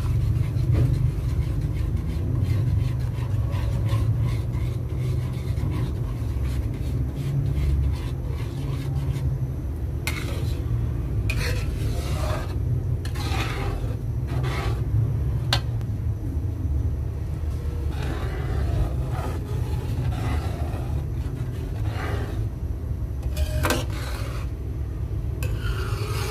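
Metal spoon stirring thick spaghetti sauce in a metal pan, scraping and rubbing against the pan with occasional sharp clicks. A steady low rumble runs underneath throughout.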